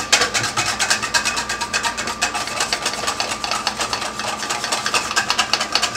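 Wire whisk beating egg yolks in a stainless steel bowl set over simmering water, with a rapid, even clicking of the whisk against the bowl at several strokes a second. The yolks are being whisked continuously over the heat for hollandaise sauce, so that they thicken smoothly instead of turning coarse.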